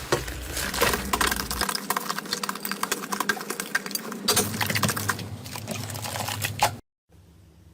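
Slime being squeezed and worked by hand, giving dense, rapid crackling and popping clicks. It stops abruptly near the end, leaving a faint low hum.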